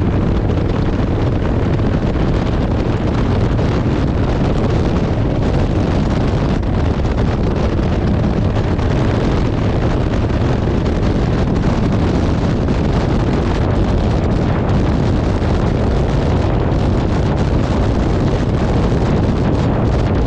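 Kawasaki VN1600 Mean Streak V-twin motorcycle running at a steady cruising speed, its engine mixed into heavy wind rush on the bike-mounted camera's microphone. The sound stays steady and loud throughout.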